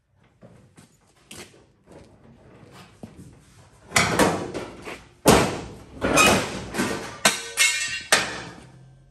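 Loose steel quarter panel of a 1970 Plymouth AAR Cuda clanking, rattling and ringing as it is worked free and lifted off the body shell. There are a few light knocks first; the loud, jangling run of metal bangs starts about halfway through and stops shortly before the end.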